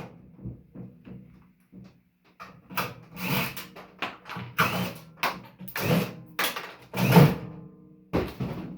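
A string of knocks and clanks as the metal parts of a microwave oven are worked on and moved while it is being taken apart. The knocks are spaced irregularly, with the loudest coming in the second half.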